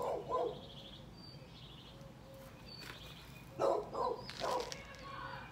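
A puppy giving short yips in two bursts, one right at the start and another a little past halfway, with a bird chirping briefly now and then in between.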